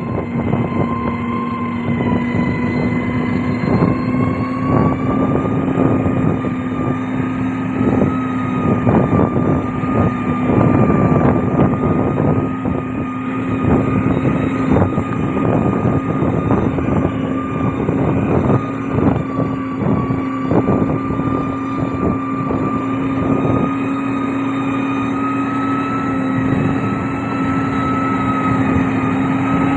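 Heavy diesel engine of a road-construction machine running steadily under load, its pitch holding nearly constant and creeping slightly higher over the half-minute, with frequent crackles and knocks over the engine note.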